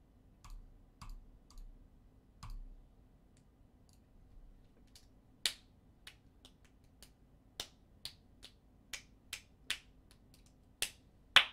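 Irregular sharp clicks and taps, a few at first and then coming more often from about halfway, with the loudest one near the end.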